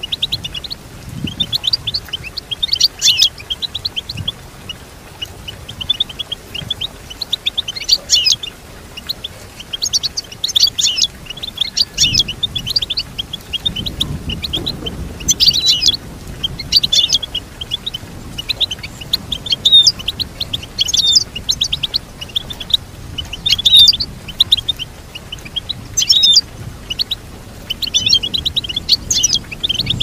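European goldfinch singing: quick, high twittering and trilling phrases in bursts every second or two, with short pauses between them.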